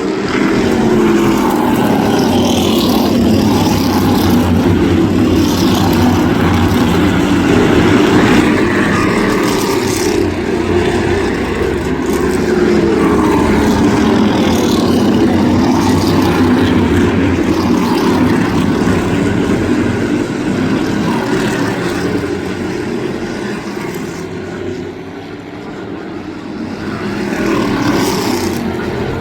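Field of crate-engine modified race cars racing on a short oval, many engines at once with pitches sweeping up and down as cars pass. The sound eases briefly about 25 seconds in, then swells again as the pack comes back around.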